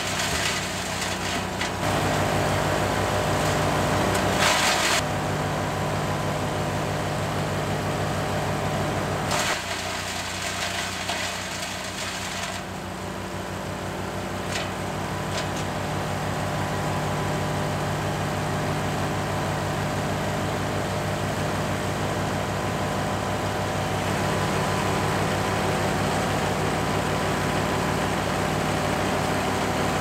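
Engine-driven wood chipper running steadily while pine branches are fed in. Brief surges of chipping noise come at the start, about four to five seconds in and near ten seconds, then the engine runs on evenly.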